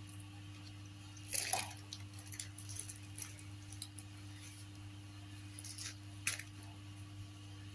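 Eating sounds: a few short clicks and scrapes of a spoon on a plate, the loudest about a second and a half in and again near the end, over a steady low hum.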